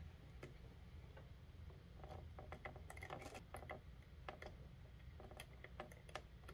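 Faint, irregular small clicks and ticks of stranded wire and fingers working at a plastic screw-terminal block, as the wire end is coaxed into the terminal hole.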